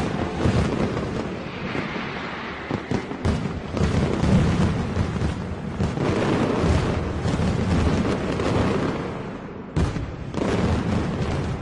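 Fireworks going off continuously, a dense run of bangs and crackling with a short break about ten seconds in.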